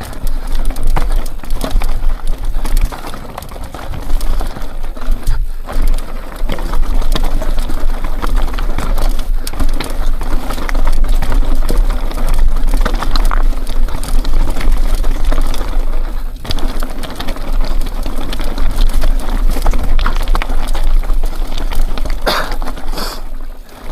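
Mountain bike riding down a rough, rocky trail: a steady deep wind rumble on the microphone and the bike rattling over the bumps, easing off briefly a few times.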